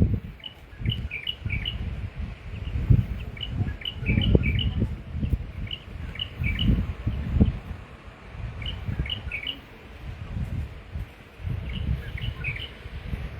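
Small birds chirping: short, high chirps in quick little clusters every second or so, over an uneven low rumble.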